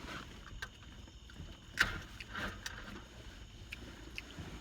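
Takeout food packaging being handled inside a parked car: a few short crinkles and clicks, the loudest just under two seconds in, over a low steady rumble.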